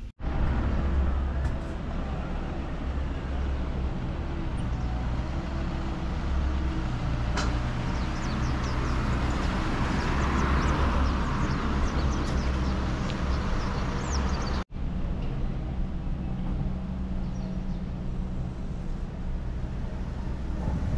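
Outdoor traffic and vehicle noise around a parking lot: a steady low rumble, with a passing vehicle swelling about ten seconds in. The sound drops out for an instant about fifteen seconds in, then resumes much the same.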